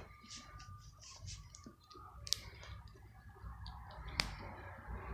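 Plastic action figure and its scooter accessory being handled, with small clicks and rustles, and two sharper clicks about two seconds in and about four seconds in as the figure's foot is pressed onto the scooter's peg.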